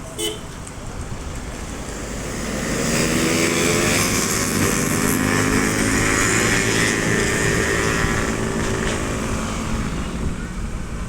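A bus driving past, its engine and tyre noise swelling for a couple of seconds, staying loud, then fading near the end as it moves away.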